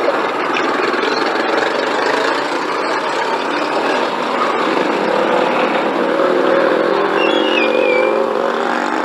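A motor vehicle engine running steadily close by, a little louder and clearer in the second half, with a short squeak near the end.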